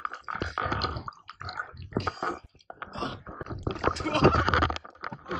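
Sea water splashing, sloshing and gurgling right at the microphone at the water's surface, in irregular slaps.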